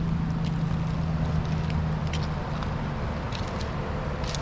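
Steady low rumble of distant road traffic, with footsteps crunching on gravel and dead leaves every so often.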